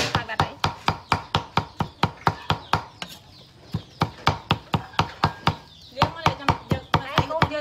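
Cleaver chopping raw pork on a wooden chopping board: quick, regular strokes about four to five a second, easing off briefly about three seconds in.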